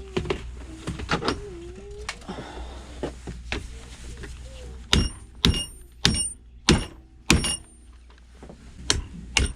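Hammer tapping metal on metal to drive out the pin holding a steel rod in a printer: scattered knocks, then five sharp, ringing strikes about half a second apart.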